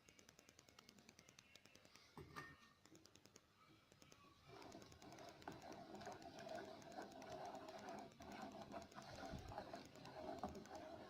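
Faint quick clicking of a spoon stirring egg into milk in a pot on the stove, with a single knock about two seconds in. About four and a half seconds in, a low steady simmer of the heating milk joins in.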